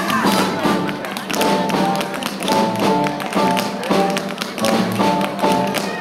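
Tap shoes striking a wooden dance floor in quick, rhythmic tap steps, over a live swing big band.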